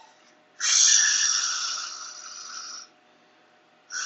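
A person breathing out forcefully through the mouth during a guided breathing exercise. One long exhale starts about half a second in and fades over about two seconds, and the next one begins near the end.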